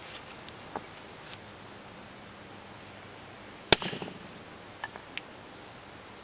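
One sharp strike of a small sledge hammer on the back of a hatchet head held against a stone, about four seconds in, driving the blade in as a wedge to split the rock. A few lighter knocks and taps of stone and tools come before and after it.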